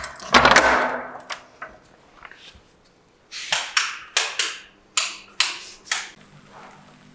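A padlock being unlocked and a metal barrel bolt on a wooden door worked open, with a metallic clatter in the first second. A few seconds later come about seven sharp clicks and knocks in quick succession.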